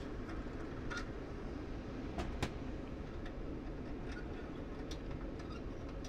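Scattered light metallic clicks and ticks as the mounting screw of a gas furnace's flame sensor is loosened at the burner, the sharpest click about two and a half seconds in, over a steady low hum.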